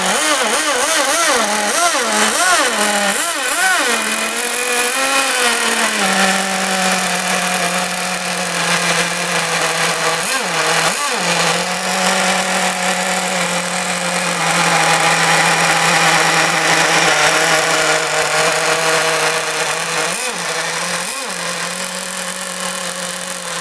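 Dynamite .15 nitro marine engine of a 1:12 RC hydroplane running. For the first six seconds its speed swings up and down about twice a second. It then holds a steady pitch, with two short rises about ten and twenty seconds in.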